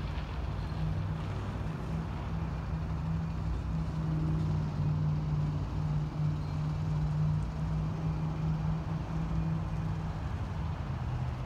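Steady low engine drone, a hum with a rumble beneath it, dropping slightly in pitch near the end.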